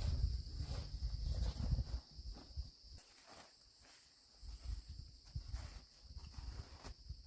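Steady high-pitched insect chorus, with scattered light knocks and rustles and a low rumble during the first two seconds.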